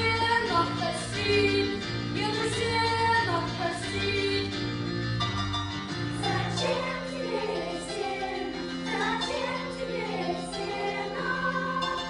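Children's choir singing a folk-style song in Russian, with keyboard accompaniment holding steady low notes beneath the voices.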